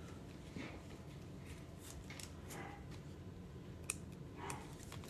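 Faint handling sounds of a sleeved trading card being slid into a rigid plastic top loader: soft scrapes and small plastic ticks, with one sharper click about four seconds in.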